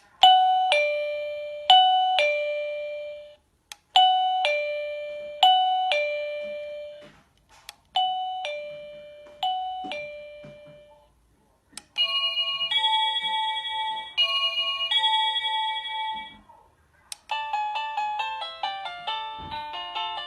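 Chime of a G2 self-powered wireless doorbell ringing: a two-note ding-dong, high then low, sounded in three sets over the first ten seconds or so. About twelve seconds in it changes to a different, longer chime, and from about seventeen seconds to a quicker tune of many notes. A short sharp click comes just before several of the sets.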